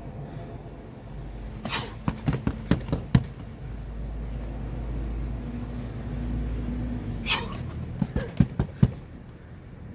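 Two quick flurries of punches landing on a hanging heavy bag, about six thuds in just over a second, then a pause and about five more. Each flurry is led by a short, sharp hissing breath.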